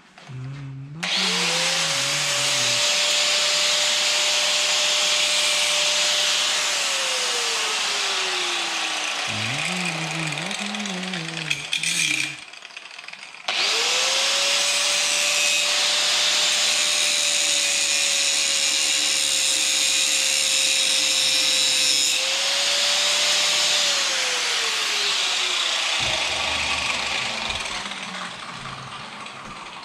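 Electric power tool spinning up to a steady high whine with a harsh hiss, running about five seconds and winding down, then starting again and running for roughly ten seconds before winding down once more.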